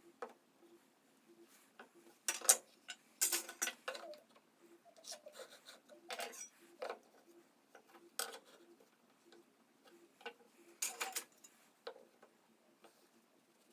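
Irregular clicks and knocks of wood and hand tools being handled at a workbench, in short clusters with the loudest a few seconds in, over a faint regular ticking about twice a second.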